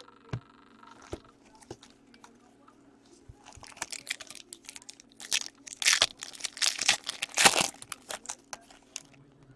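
A few light taps, then a foil trading-card pack crinkling and being torn open by hand, loudest about six to seven and a half seconds in.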